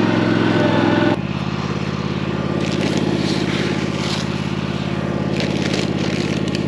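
Small engine of a ride-on machine running steadily under load. About a second in it drops suddenly to a lower, quieter speed and runs on there, with short hissy rattles coming and going over it.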